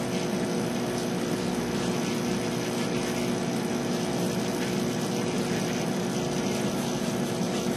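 Aquarium pumps running: a steady hum of several tones over an even hiss.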